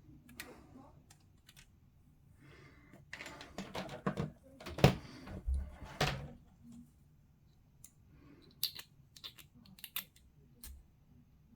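Plastic miniature parts being snipped from their sprue and handled: a run of sharp clicks and rattles of hard plastic, loudest about five seconds in, then a few separate sharp snips near the end.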